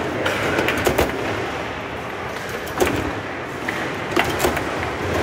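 Foosball being played on a tournament table: about half a dozen sharp, irregular clacks as the player figures strike the ball and the rods knock, over a steady background noise.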